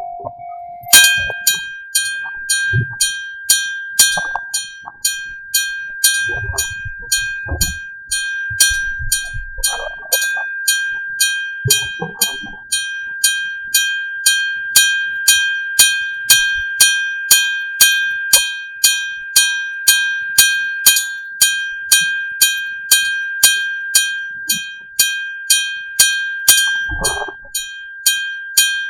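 Electric-bell level crossing warning bell starting up about a second in and ringing continuously, about two sharp strikes a second, each with a ringing tone that carries over into the next. A few low rumbles lie underneath.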